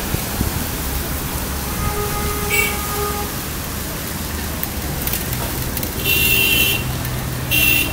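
Steady rush of traffic and wet-road noise while cycling through a flooded street. Short, high-pitched vehicle horn toots sound over it, one about two and a half seconds in and louder ones near the end.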